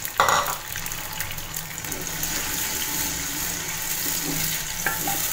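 Chopped tomatoes and garlic sizzling in hot oil in a clay handi, with a wooden spoon stirring them. There is a brief louder flare of hiss just after the start, then a steady sizzle.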